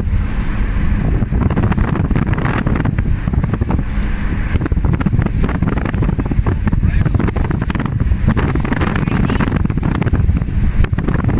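Wind buffeting the microphone from a moving car, a loud, steady, rumbling rush with irregular flutter.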